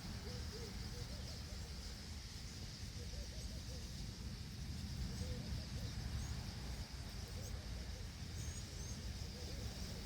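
Outdoor ambience with a low rumble and a steady high hiss. A few faint, short bird chirps come about eight seconds in.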